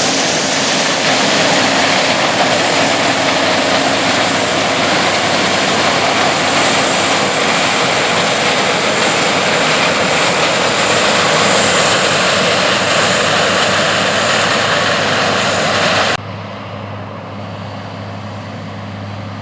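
New Holland CR8090 combine harvesting corn: a loud, steady machine noise. About 16 seconds in it cuts off abruptly to a quieter, steady low engine hum.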